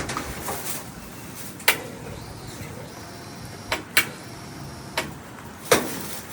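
Handling noise from working on a snowblower: about six sharp knocks and clanks spread over the few seconds, with no engine running.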